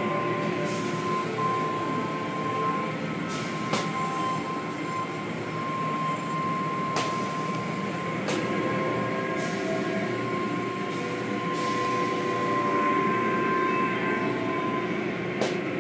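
Automatic tunnel car wash heard from inside the car: a continuous rumble of water spray and machinery with a steady high whine over it, and now and then sharp slaps as the cloth strips and brushes hit the car.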